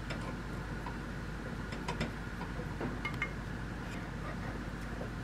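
Wooden chopstick clicking and scraping against a stainless-steel ladle while stirring melting sugar, a handful of light clicks over the steady hiss of a gas burner flame.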